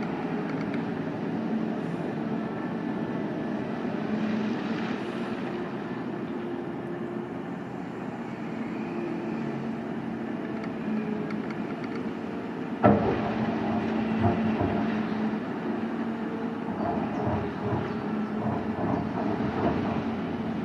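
Liebherr R 9350 mining excavator's engine running with a steady drone as the front shovel digs. About 13 seconds in a sharp bang, followed by clanking and rattling of steel and rock as the bucket works the pile.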